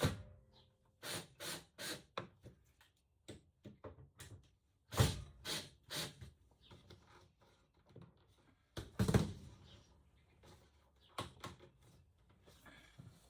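Irregular knocks, taps and clunks of pieces being handled and fitted into a camper cabinet, with two heavier thuds about five and nine seconds in.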